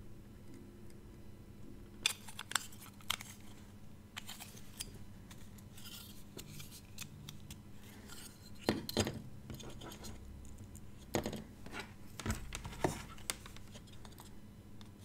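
Multimeter probe tips tapping and scraping on the metal pins of an edge-connector breakout board: scattered light clicks and scratches in short clusters, with pauses between. The sound of continuity-checking soldered joints pin by pin.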